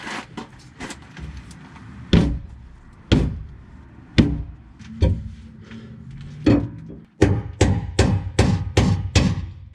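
Sharp knocks, scattered at first, then a fast run of about three a second near the end.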